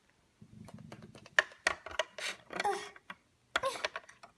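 Small plastic Littlest Pet Shop figurines being handled and set down in a plastic dollhouse set, giving a string of sharp clicks and knocks after a brief low rumble of handling noise.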